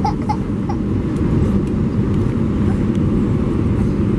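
Steady cabin noise inside an Airbus A320-214 on approach to land: the CFM56 turbofan engines and the airflow over the fuselage make an even low rumble, heard from a window seat over the wing.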